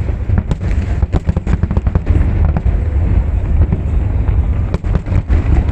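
Fireworks display: a loud, continuous barrage of rapid bangs and crackles over a deep rumble.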